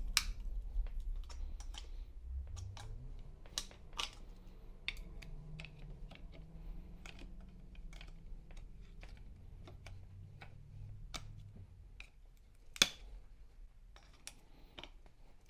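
Irregular clicks and taps of hand tools and parts on a Ford Bronco steering rack being forced apart, with one sharp, louder knock near the end.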